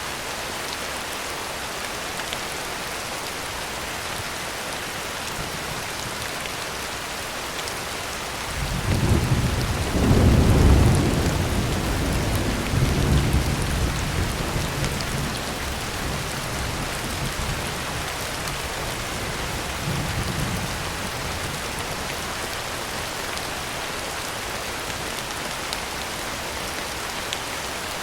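Steady heavy rain drumming on a tin roof. A roll of thunder comes in about nine seconds in, peaks a second or two later and rumbles on for several seconds, with a fainter rumble near twenty seconds in.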